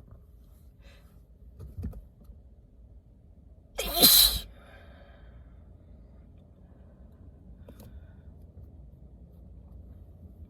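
A woman's single forceful, uncovered sneeze from a head cold, one loud sudden burst about four seconds in.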